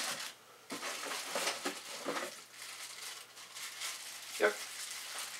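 Plastic packaging bags crinkling and rustling on and off as parts are handled and unwrapped.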